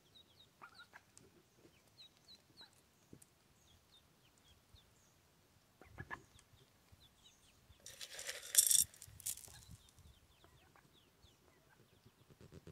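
Mallard ducklings peeping: short, high, upward-flicking chirps, scattered and repeated. About eight seconds in comes a brief loud noisy burst, the loudest sound here.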